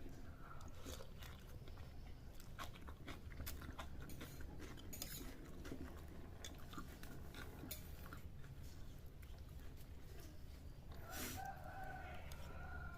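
Mouth sounds of someone eating bakso meatball soup: chewing, with many small wet clicks and smacks. Near the end a rooster crows once in the background.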